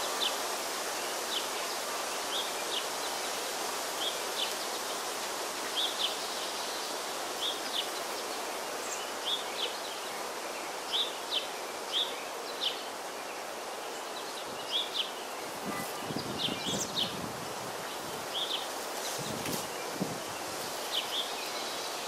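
Honey bees buzzing over an open hive: a steady hum, with louder close buzzing passes between about 16 and 20 seconds in. Short high chirps repeat throughout in the background.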